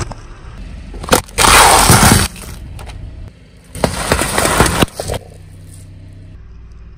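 A car runs over objects and crushes them: two loud crunching, breaking spells, about a second in and again near the four-second mark. After them the car's engine hums low and steady.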